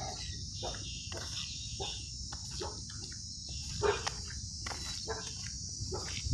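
Insects chirring steadily in a high, even drone, with scattered soft knocks and clicks.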